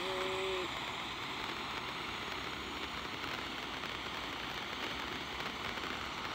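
Ground fountain firework spraying sparks with a steady hiss. A short steady two-note tone sounds at the very start.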